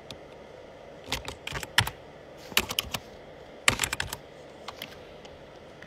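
Computer keyboard keys clicking in three short bursts of typing, with a couple of single key taps after them.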